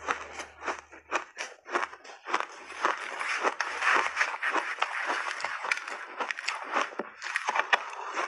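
Mouth crunching and chewing big bites of refrozen blended shaved ice: a dense, continuous run of sharp crackling crunches.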